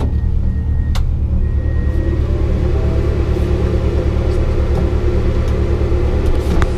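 Rally car's engine idling, heard from inside the stripped cabin as a steady low, pulsing rumble. A single sharp click comes about a second in.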